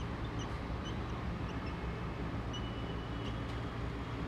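Whiteboard marker squeaking in short, high chirps as letters are written, with one longer squeak about two and a half seconds in, over a steady low room hum.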